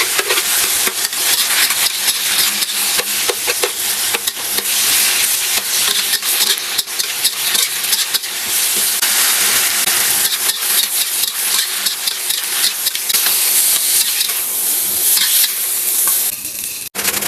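Vegetables stir-frying in a hot pan: a steady sizzle with many quick clicks and scrapes of a utensil stirring, breaking off abruptly for a moment near the end.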